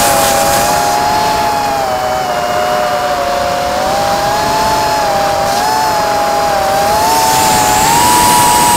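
Goby 180 mini quadcopter's four motors and propellers whining, heard close up from its onboard camera in flight. The pitch wavers up and down with the throttle and rises slightly near the end, over a steady rushing noise.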